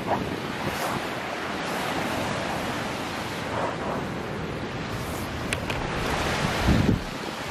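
Surf breaking steadily on a sandy beach, mixed with wind rushing over the microphone. A louder low buffet comes near the end.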